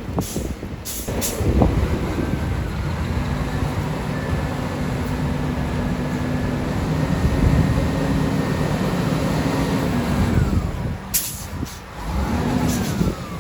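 Heavy diesel engine of a snow-removal vehicle running steadily, dropping away about ten seconds in.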